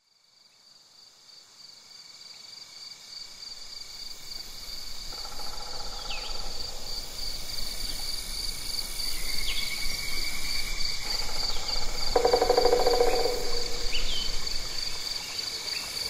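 Early-morning outdoor ambience fading in from silence: a steady high-pitched insect trill with scattered short bird chirps. A pitched buzzing sound comes in briefly about five seconds in and again, louder, from about eleven to thirteen seconds.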